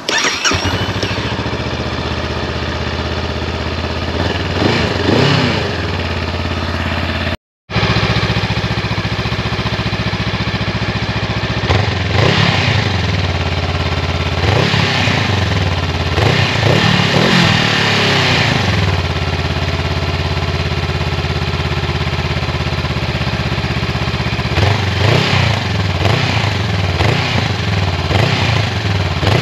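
Honda CMX500 Rebel's 471cc liquid-cooled parallel-twin engine cranking and catching on the starter, then idling through its shotgun-style exhaust, with several throttle blips that rev it up and let it fall back to idle.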